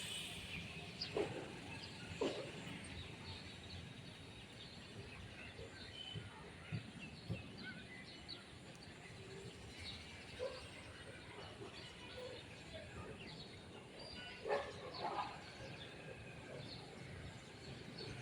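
Birds chirping and calling over a steady background hiss: many short, scattered chirps, with a few louder, lower calls about a second in, about two seconds in, and around fourteen to fifteen seconds in.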